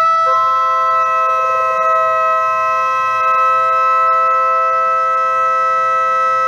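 Two metal organ flue pipes sounding together a third apart: one steady pipe tone, joined about a quarter second in by a lower one, both held. The pipe is being tuned against the other.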